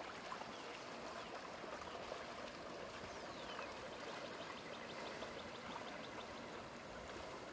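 Lake water lapping and splashing, with the low hum of a passing speedboat's engine faintly audible in the second half.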